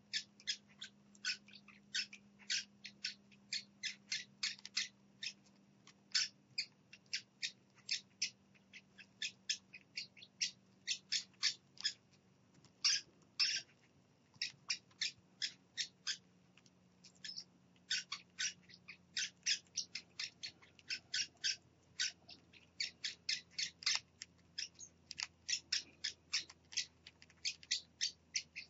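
Baby parrot chicks peeping: a steady run of short, high chirps, two or three a second, with a few brief pauses. These are the rhythmic calls of nestlings begging to be fed.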